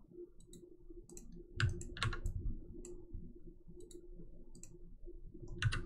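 Scattered faint computer mouse clicks, with a couple of louder ones about one and a half to two seconds in and a quick cluster near the end, over a faint steady hum.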